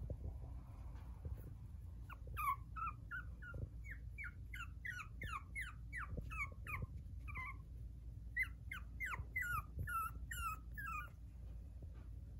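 Six-and-a-half-week-old puppy whimpering: a string of short, high-pitched whines, each falling in pitch, about two a second. They start about two seconds in and break off briefly in the middle.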